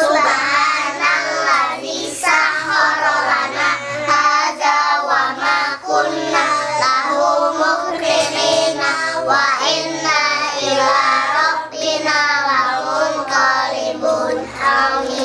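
A group of young children singing a prayer (du'a) together in unison, in a sing-song chant with short breaks between phrases.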